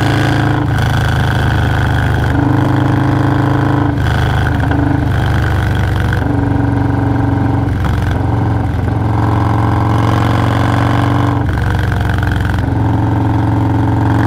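Stage 2-tuned Harley-Davidson Milwaukee-Eight 117 V-twin pulling the motorcycle along the road, its note rising and dropping with the throttle several times, with wind noise over the helmet microphone.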